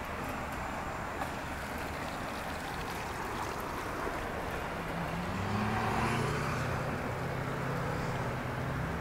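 48 Special outboard motor running with its cowling off, now running well after repairs. About five seconds in, its speed rises and then holds at a higher, steady pitch.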